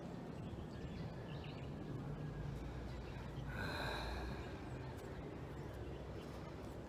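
A steady low outdoor rumble, with one short breath from the person at the camera a little past halfway through.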